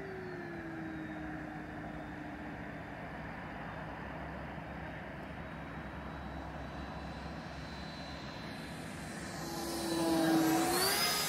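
Electric ducted-fan whine of a 90 mm FlyFly F-86 RC jet in flight: a steady whine that slides down in pitch over the first couple of seconds, then swells to its loudest as the jet passes close about ten seconds in, its pitch stepping up just before the end.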